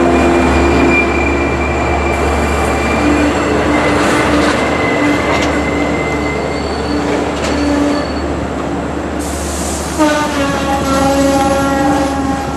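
Long Island Rail Road train of C3 bi-level cars with a DM30AC locomotive, running through the station with steady high-pitched wheel and brake squeal over the rumble of the cars. About ten seconds in, a new chord of several tones starts suddenly.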